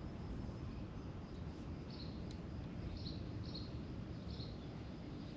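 Steady low background rumble with a few short, high bird chirps from about two seconds in, spaced roughly half a second to a second apart.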